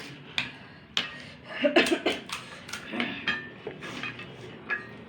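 Utensils clinking against bowls and plates during eating: a string of sharp clicks, some with a short ring, busiest and loudest about two seconds in.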